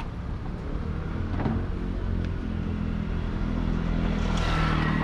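An engine running steadily, getting louder towards the end.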